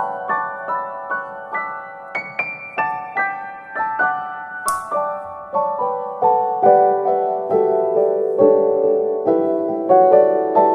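Background piano music: a gentle melody of single ringing notes, about two a second.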